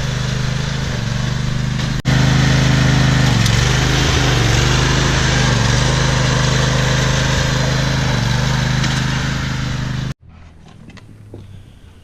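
Pit bike engine running steadily, with slight dips and rises in engine speed. It breaks off sharply about two seconds in, comes back louder, and cuts off abruptly near the end.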